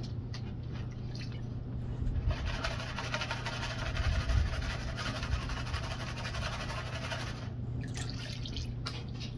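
Muddy water sloshing and splashing as a classifier screen full of gravel is swished through a water-filled gold pan, water pouring back through the screen while the paydirt is classified. The washing starts about two seconds in and stops a couple of seconds before the end, with a few sharp knocks near the start and end.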